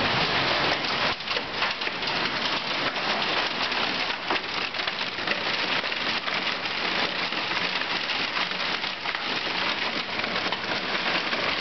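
Heavy rain with hail pelting down, a dense steady hiss of downpour full of small clicking impacts as hailstones strike.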